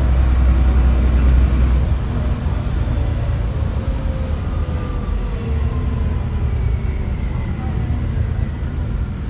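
ADL ALX400 Trident double-decker bus on the move, heard from inside on the upper deck: a steady low engine drone, strongest in the first two seconds, with a faint whine that slides down in pitch over several seconds.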